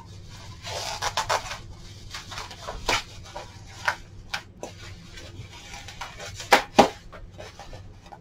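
Clear plastic bag and bubble wrap crinkling and rustling as a ceramic dish is unwrapped by hand, with scattered sharp crackles and two loud ones close together late on.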